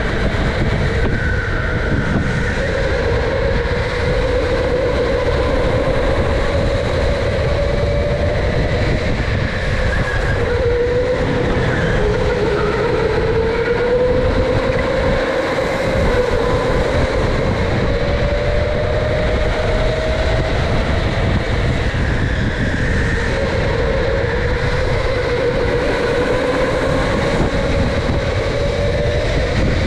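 Electric go-kart's motor whining, its pitch rising and falling as the kart speeds up and slows through the corners, over a steady low rumble of tyres and chassis, heard from on board the kart.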